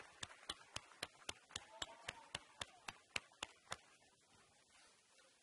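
Rhythmic hand clapping, sharp even claps about four a second, that stops about four seconds in.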